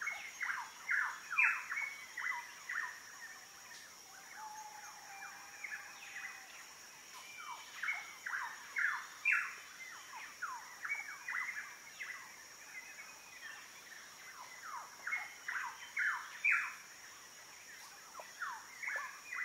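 A bird calling in repeated runs of quick, short falling notes, in phrases of a second or two with pauses between, over a steady high-pitched drone of insects.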